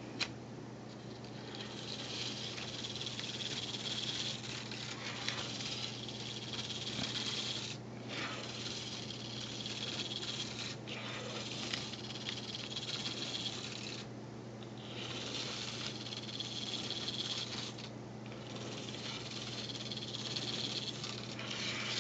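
Modified Tomytec Bus Collection model buses running in a line, their tiny drive motors and gears giving a high, hissing whir that cuts out briefly several times, over a steady low hum.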